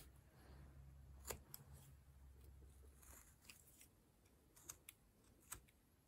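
Faint short slicing scrapes and ticks of a small hand carving blade cutting into wood, about five light cuts spaced a second or so apart, as the eyebrows of a small carved face are trimmed back.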